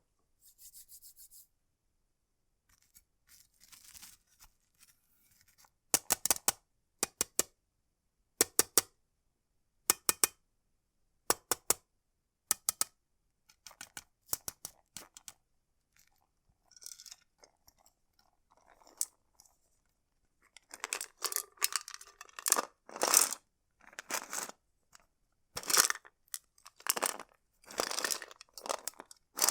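Tapping and clicking on a metal sweets tin: sharp metallic clicks come in quick groups of two to four, spaced a second or two apart. About two-thirds of the way through, the sounds turn denser and longer, scratchy strokes on the tin that are the loudest part.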